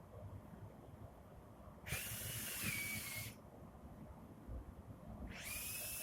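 A high-speed rotary milling tool, of the die-grinder kind, run in two short bursts, the second starting near the end. Each burst is a hissing whine that jumps up as the tool spins up, then settles slightly lower.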